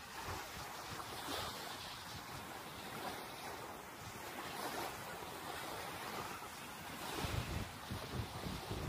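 Small waves washing up and hissing over a sandy shore, with wind rumbling on the microphone in gusts near the end.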